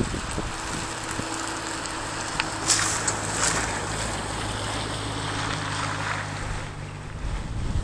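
Ford Mustang GT's V8 engine running at a steady note as the car drives past, with wind buffeting the microphone. The engine sound drops away near the end.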